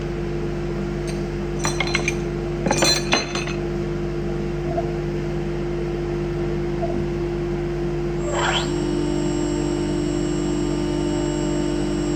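CNC router running with a steady hum, with two short clusters of metallic clinking about two and three seconds in. About eight seconds in a rising whine sounds and the machine's pitch shifts to a new steady tone.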